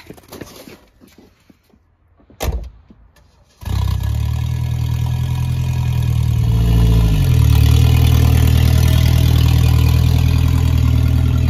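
A single knock, then a car engine running steadily from a few seconds in, rising briefly in pitch and settling back about midway.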